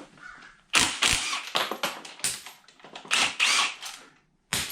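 Cordless impact driver running in about three short bursts, backing out the 10 mm bolts of a dirt bike's handlebar clamp cover. A short sharp click comes near the end.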